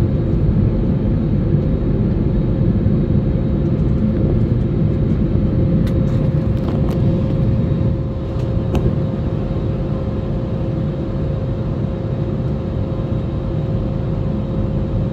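Airliner cabin noise during the climb after takeoff: a steady engine and airflow rumble with a steady whine held on one note. The noise eases slightly about halfway through, and a few faint clicks come just before that.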